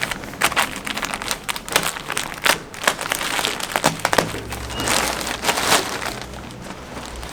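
Plastic packaging crinkling and crackling in an irregular run as clothing is handled and pulled out of its bag.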